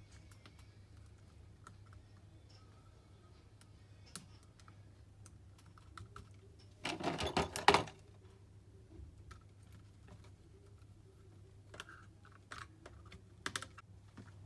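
Scattered small plastic clicks and taps of laptop parts being handled and fitted during reassembly of an HP EliteBook 840 G3, with a loud rattling clatter lasting about a second, roughly halfway through.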